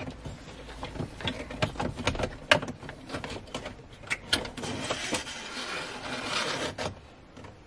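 Gauge cable being fed up behind plastic dashboard trim by hand: irregular clicks, taps and rustling of wire and fingers against the plastic panels, with a longer scraping rustle from about five seconds in that stops at about seven seconds.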